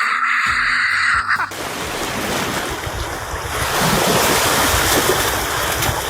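Ocean surf breaking and washing in, a steady rushing noise, with wind on the microphone.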